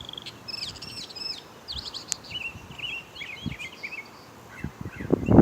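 Northern mockingbird singing a string of varied, high chirping phrases, each repeated a few times before it switches to the next, mimicking the calls of other birds. It stops about four seconds in.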